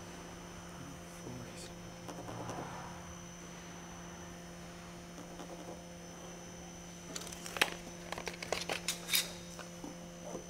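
A steady electrical mains hum, with a quick run of light clicks and knocks over the last few seconds as tools and parts are handled.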